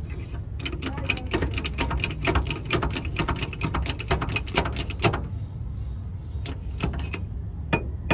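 Quick metallic clicking and clunking from a vehicle's propeller shaft being rocked by hand at its cross joints and center bearing, in a dense run for the first five seconds, then a few single knocks. It is the play being checked for: the owner suspects a worn center bearing.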